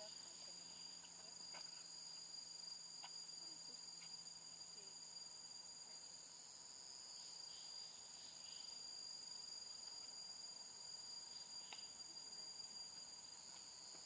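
Faint, steady high-pitched drone of forest insects, two unbroken tones one above the other, with a few soft ticks now and then.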